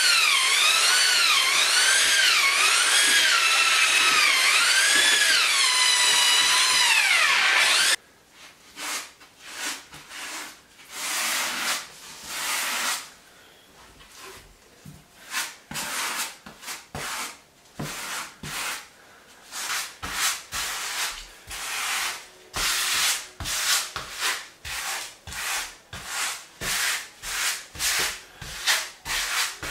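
Corded drill with a paddle mixer churning epoxy grout in a plastic bucket, its motor pitch rising and falling as the trigger is worked, until it cuts off about 8 seconds in. Then a grout float scraping grout across porcelain floor tile in irregular strokes that come faster toward the end.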